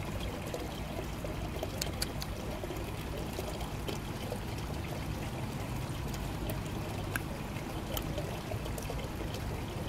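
Water steadily pouring and trickling through an aquaponics system, with a few faint clicks.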